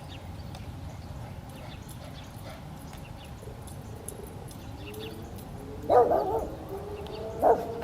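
Outdoor warning sirens in the distance winding up, with faint rising tones that settle into steady pitches, over a low rumble. A dog barks loudly twice near the end.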